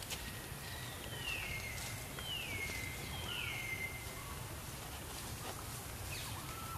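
Three high whistled animal calls in a row, each sliding down in pitch and then briefly holding, over the faint rustle and snap of leaves and branches as monkeys climb through a tree.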